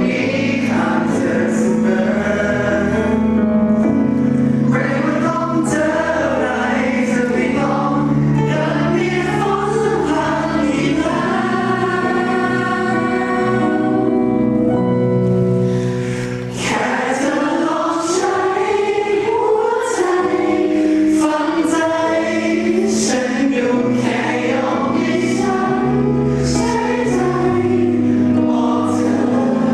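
A pop song performed live: singing over a musical backing, steady and loud, with a short dip in level about halfway through.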